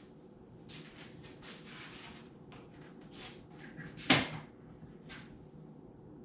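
Foam board being handled and fitted against the boat's side: faint scrapes and light taps, with one sharp knock about four seconds in.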